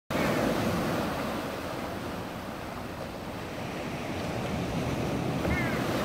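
Sea waves washing with wind on the microphone, and a few short gull calls, the clearest near the end.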